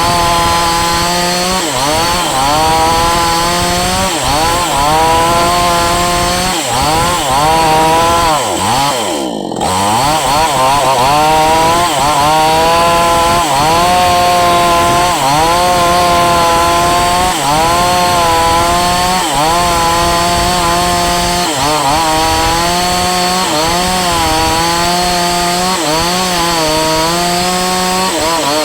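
Falcon Evo 9000 two-stroke chainsaw running at high revs. Its pitch keeps dipping and recovering, with a deeper drop about nine seconds in.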